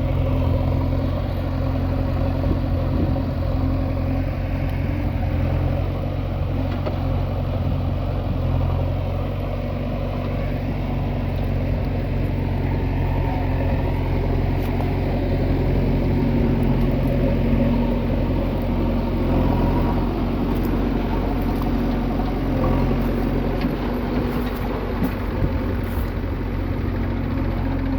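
Heavy diesel engine running steadily with a low rumble, the pitch shifting only slightly as the load changes.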